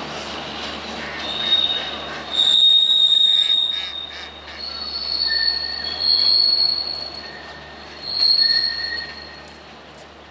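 Steel wheels of a departing passenger train squealing as the coaches take a curve over the station points. The squeals are high-pitched and repeated, rising and fading several times. A rumble of wheels on track dies away after about two and a half seconds.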